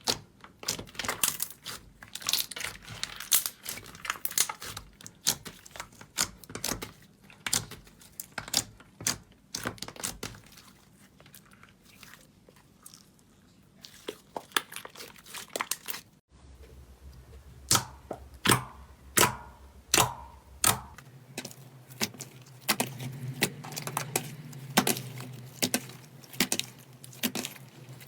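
Slime being squeezed and kneaded by hand: a dense run of sharp crackles and pops, then, after an abrupt change about sixteen seconds in, fewer and more spaced pops.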